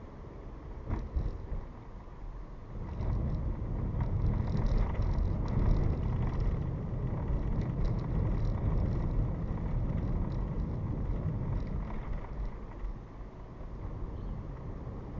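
Car road noise heard from inside the car: engine and tyre rumble that grows louder about three seconds in as the car gathers speed, with small ticks and rattles over it and a single knock about a second in.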